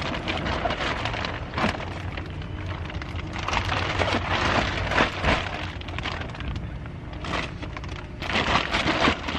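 Grocery packages being handled and rearranged: irregular clattering knocks and crinkling of boxes and wrappers, over a steady low hum.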